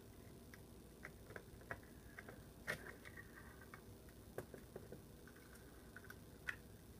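Faint, irregular clicks and taps of small plastic parts being handled as a phone-call recorder's case is put back together, the sharpest about two and a half seconds in.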